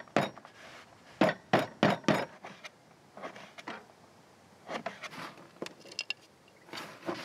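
Kitchen knife chopping nuts and dried apricots on a tabletop: a handful of sharp knocks in the first two seconds, then softer scattered clicks and rustling as the chopped fruit and nuts are handled in a metal camp pot.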